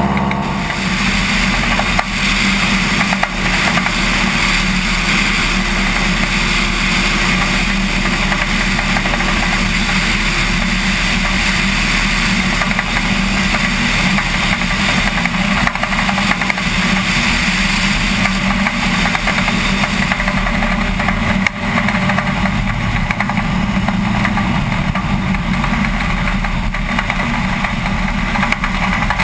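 DHC-2 Beaver floatplane's radial engine and propeller running steadily in flight, mixed with heavy wind rush over the wing-mounted camera.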